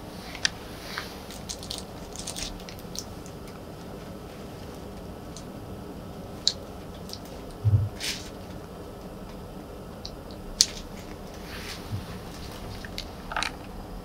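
Scattered light rustles and sharp little clicks, with a soft low thump a little past halfway, over a steady room hiss.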